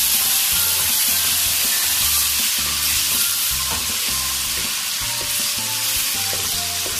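Boneless chicken breast pieces frying in hot oil, sizzling steadily, while a slotted spoon stirs and turns them in the pan.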